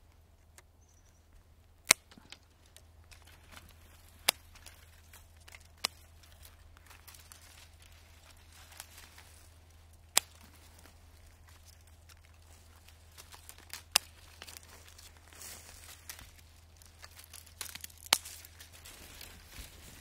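Hand pruning shears snipping small cherry twigs: six sharp cuts a few seconds apart, with light rustling and crackling of branches between them, more of it near the end.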